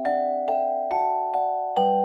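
Background music of gentle struck chords with ringing, sustained notes, a new chord about every half second.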